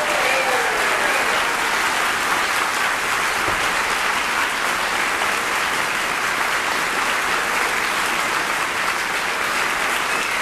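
Concert audience applauding steadily after the orchestra stops playing.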